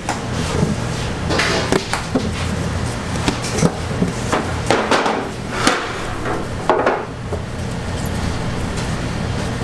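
Knocks and clatter of bakery work, several separate strikes and brief scrapes, over a steady low hum of kitchen equipment.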